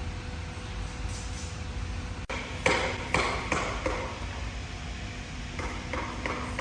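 Sawmill machinery running with a steady low hum, broken by a quick run of four sharp, ringing knocks, then a few softer knocks near the end.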